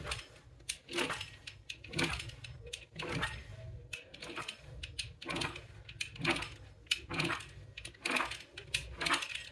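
Pizza cutter wheel rolling through a sheet of stiff rolled-out wheat dough on a board, cutting it into strips: a series of short cutting strokes, roughly one or two a second.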